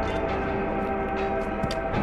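Music with sustained, bell-like chiming tones, and a few faint clicks over it.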